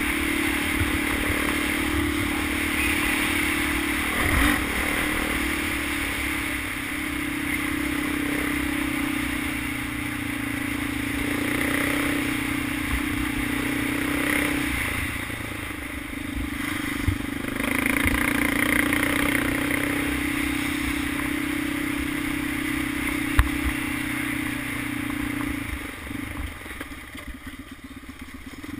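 Honda 400EX quad's single-cylinder four-stroke engine running at a steady pace on a dirt trail, with a few sharp knocks along the way. Near the end the throttle comes off and the engine falls to a lower, quieter note.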